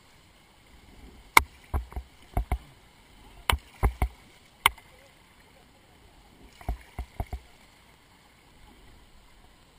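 Plastic whitewater kayak and paddle working on a moving river: about a dozen sharp knocks and taps in three small clusters, with a faint wash of water between them.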